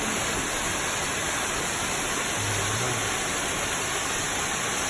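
Steady rushing roar of a large waterfall, close by.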